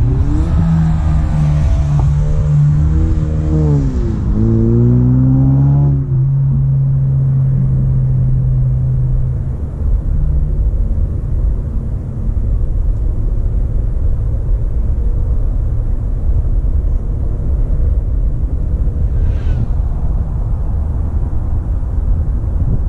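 A motor vehicle engine running, its pitch rising and falling for the first six seconds or so, with a steady low hum that fades out about ten seconds in. After that there is only a low, steady rumble.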